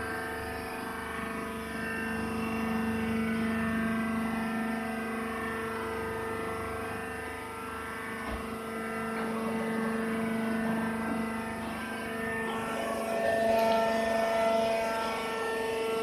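Steady machine hum with several fixed pitches from a horizontal hydraulic baler's pump motor running, a higher tone joining about three-quarters of the way in.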